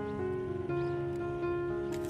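Background music: soft, held notes that shift to a new pitch every half second or so.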